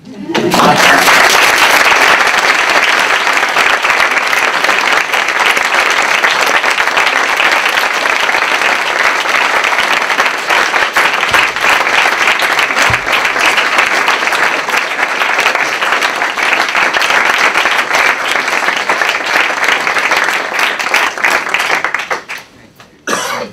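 Audience applauding: loud, sustained clapping that starts all at once, holds steady for about twenty seconds and dies away near the end.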